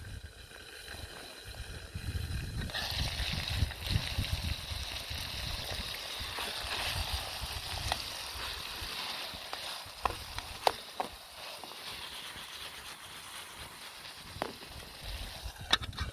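Cherry tomatoes sizzling in an open pan over a wood fire. The sizzle sets in about three seconds in, with a few light knocks of a wooden spatula and the pan lid later on.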